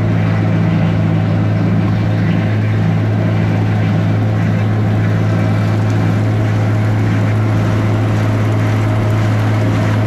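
Tractor engine running steadily under load, driving a Kuhn Knight slinger manure spreader that is throwing manure: a constant low drone with the clatter and whir of the spreader's slinger over it.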